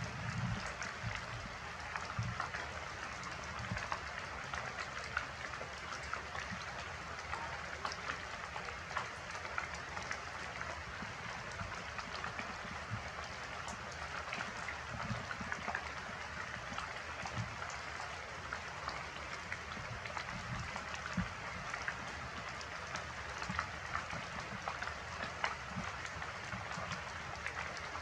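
Heavy rain pouring down steadily, with countless drops ticking on surfaces and scattered dull low thumps.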